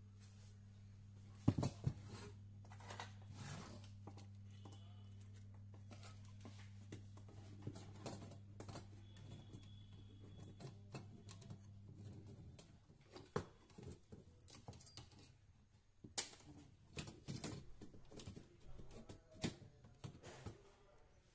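Clicks, knocks and light rattles of a CRT monitor's metal chassis and picture tube being moved and handled, with the loudest knock about a second and a half in. Under them a steady low hum runs and stops about halfway through.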